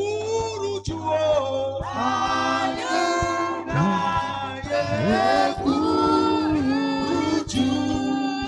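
A gospel worship song sung with long held, gliding notes over a low sustained instrumental accompaniment.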